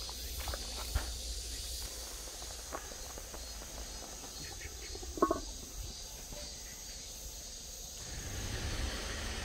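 A speckled enamel pot lid set down on a large soup pot with one sharp knock and brief ringing about five seconds in, after a few light taps as green onions are laid in the pot. A steady hiss runs underneath.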